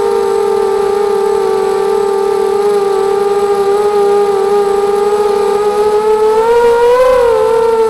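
ZMR250 racing quadcopter's brushless motors and propellers whining in flight as heard from the onboard camera, a steady pitched tone that rises briefly about seven seconds in as the throttle changes.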